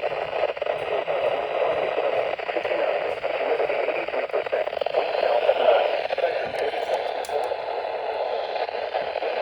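Radio static from a receiver on a weak weather-radio signal: a steady hiss with crackle, with no clear speech coming through.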